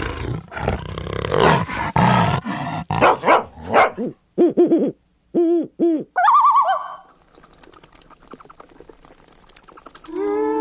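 A quick succession of different animal calls. First come rough growling roars, then two groups of short rising-and-falling hooting calls and a higher warbling call, then faint high chirping. Near the end, a long sliding howl of a dog or wolf begins.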